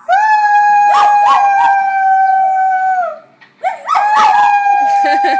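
Maltipoo howling together with a person howling along: two long, steady, high howls with a short break after about three seconds, with shorter wavering rising calls over the first one.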